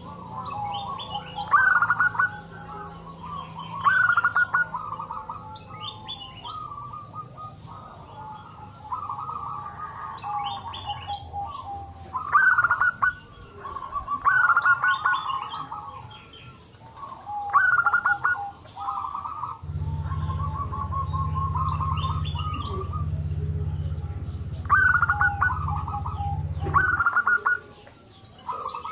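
Several zebra doves (perkutut) cooing in repeated, overlapping bouts of quick staccato coo notes. A low steady hum joins about two-thirds of the way through and stops shortly before the end.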